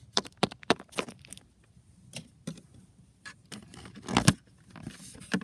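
Plastic toy figurines being moved and tapped on a plastic toy house floor: a string of small, irregular clicks and taps, with a louder knock about four seconds in.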